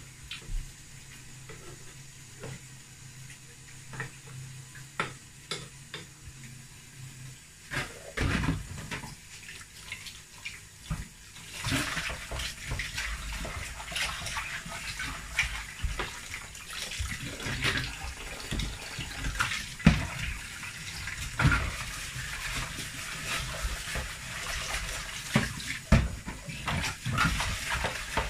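Kitchen tap running into a stainless steel sink while a bowl is rinsed and scrubbed by hand, with knocks of the bowl against the sink. The water comes on about twelve seconds in, after a quieter stretch of low hum and small clicks.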